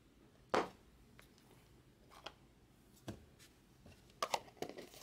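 A few light knocks and taps from a cardboard trading-card box being handled, the strongest about half a second in and a quick run of them near the end.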